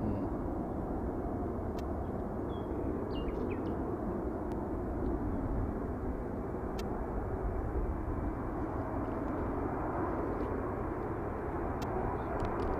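Distant, steady rumble of an Airbus A330's jet engines as the airliner lines up on the runway, growing slightly louder near the end. A bird chirps briefly about three seconds in.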